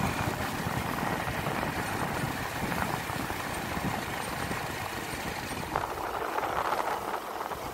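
Motorcycle engine running steadily while riding along a road, mixed with rushing wind and road noise.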